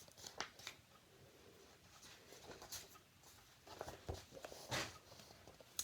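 Pages of a picture book being handled and turned: a few faint, brief paper rustles and soft taps.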